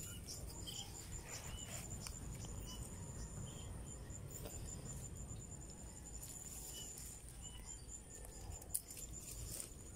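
Insects chirping, cricket-like: a high, thin trill pulsing at an even rate, over a faint low rumble.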